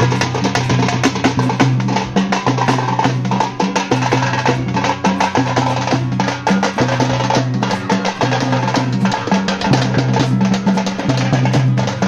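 Live folk drumming: a group of drums beaten with sticks plays a fast, dense rhythm, accompanying a tiger-dance performance. A low steady tone runs under the strokes and breaks off briefly every second or two.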